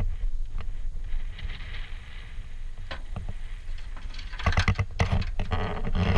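Wind rumbling on the microphone, with scattered clicks and knocks that become a dense run from about four seconds in as gear is handled at a sailboat's bow.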